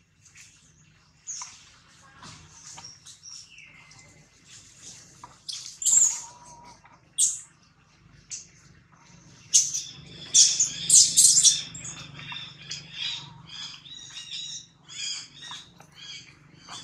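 Newborn long-tailed macaque crying in shrill, high-pitched squeals and squawks. It is loudest in a run of cries about ten seconds in, then gives a string of short repeated cries.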